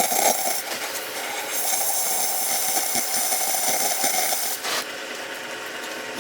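Oxy-fuel cutting torch cutting steel: a steady hiss with fine crackling, which drops a little in level about three-quarters of the way through.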